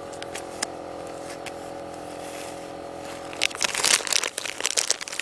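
Crinkling and rustling of a blind-bag wrapper being handled, starting about three seconds in and building into a dense run of crackles, over a steady low hum.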